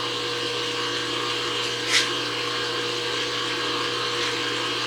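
A steady machine hum made of several constant tones, from the powered-up CNC knee mill, with one short hiss about two seconds in.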